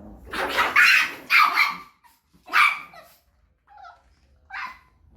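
A dog barking, about five short, sharp barks: two loud ones close together at the start, then single barks spaced out, one of them faint.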